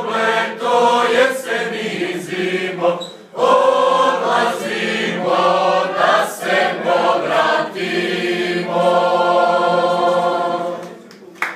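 Mixed choir of young men and women singing a Serbian song a cappella in unison, with a brief breath break about three seconds in. The song ends on a long held chord that fades away about ten and a half seconds in.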